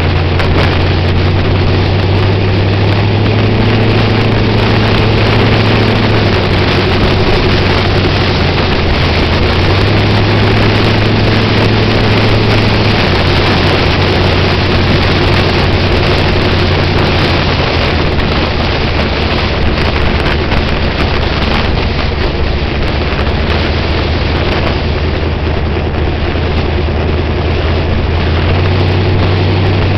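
Street-legal sprint car's fuel-injected V8, with eight open injector stacks, running at a steady cruise on the street, its note stepping down and back up a little a few times. Heavy wind noise on the microphone.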